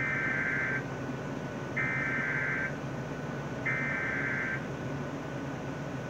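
Electronic beeping: three high beeps of nearly a second each, about two seconds apart, over a low steady hum.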